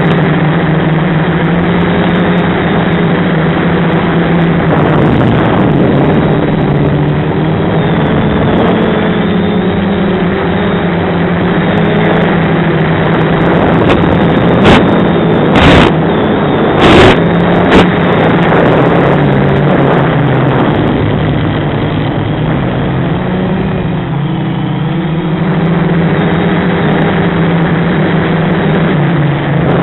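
Quadcopter's SunnySky brushless motors and propellers buzzing steadily in flight, the pitch rising and falling as the throttle changes. A few short loud crackles come about halfway through.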